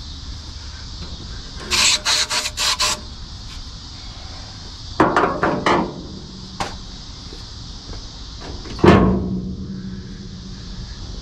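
A run of about five sharp raps about two seconds in, another cluster of knocks around five seconds, and one loud thud near nine seconds followed by a short ringing hum.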